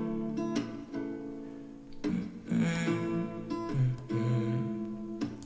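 Background music: strummed acoustic guitar chords in an instrumental gap of a pop song.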